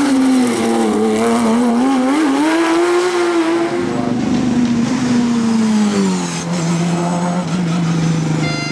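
Race car engine working hard on a hillclimb, its note swinging up and down with the throttle. About four seconds in the sound changes to a lower engine note that falls and then holds steady.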